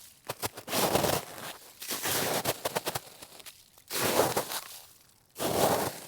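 Snow shovel digging and scraping through crunchy snow: about four strokes, each a short gritty scrape with crackling, spaced one to two seconds apart.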